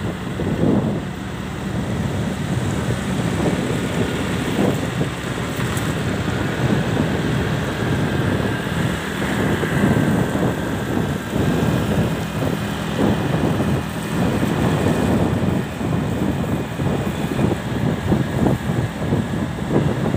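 Wind buffeting the microphone of a moving motorcycle, with the motorcycle's engine and tyres running underneath at a steady speed.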